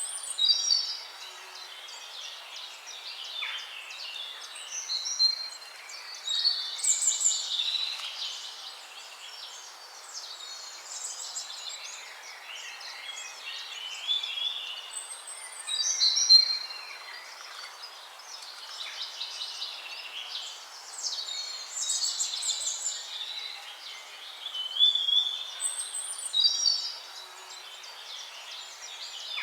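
Songbirds singing: overlapping chirps, trills and whistles, with louder phrases every few seconds over a steady hiss.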